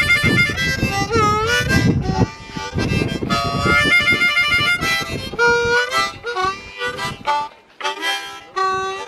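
Harmonica played with both hands cupped around it: chords with bent notes at first, then shorter single notes in the second half.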